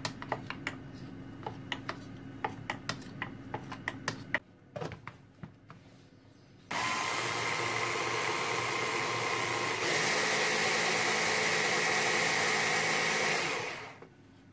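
A spoon scrapes and taps against the sides of a plastic food-chopper bowl. Then the chopper's electric motor runs steadily for about seven seconds, blending a runny foie gras mixture. Partway through it turns louder and higher, then it stops.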